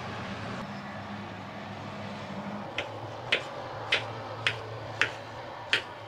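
Kitchen knife slicing through a ripe papaya half and tapping the bamboo cutting board, a sharp tap about every half second starting about three seconds in, over a steady low hum.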